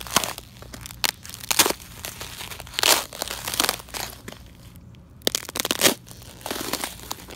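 Boots stepping on a thin crust of ice over grass, each step crunching and cracking the ice, roughly one step a second with a short pause a little past the middle.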